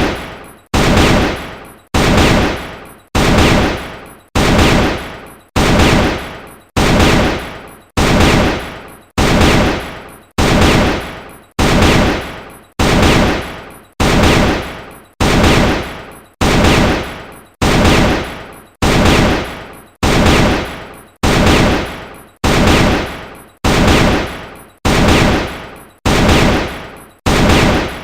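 AK-47 assault rifle firing, the same gunfire sound effect repeated about once a second, each with a sharp start and a tail that fades over most of a second.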